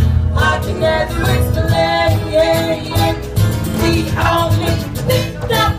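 A song performed live: singing over instrumental accompaniment.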